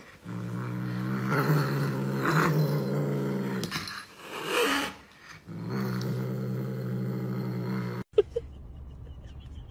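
A cat growling low and steady while guarding what it holds in its mouth, in two long growls with a short break about four seconds in. It cuts off about eight seconds in.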